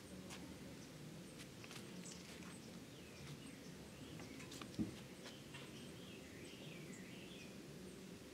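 Faint bird calls: a few short chirps, then a run of rising and falling calls through the middle, over a low steady background hum. One sharp click a little past halfway is the loudest sound.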